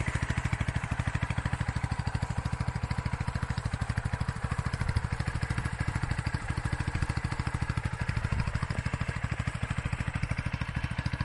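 Motron Revolver 125cc motorcycle engine idling steadily, a rapid, even exhaust pulse with no revving.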